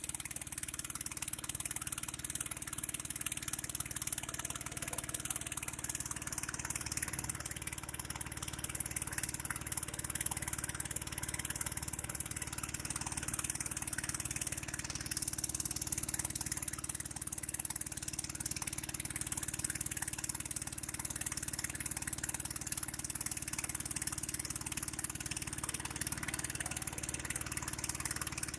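A vehicle engine running steadily at an even pitch, with a constant high hiss over it.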